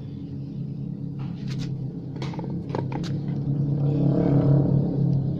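An engine running nearby with a steady hum that swells about four seconds in and then eases, like a vehicle passing. A few sharp metallic clicks and knocks of engine parts being handled sound over it in the middle.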